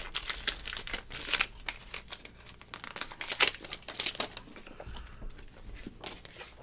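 Foil Pokémon booster-pack wrappers crinkling and rustling as they are handled, in short irregular crackles, the loudest about a second and a half in and again near three and a half seconds.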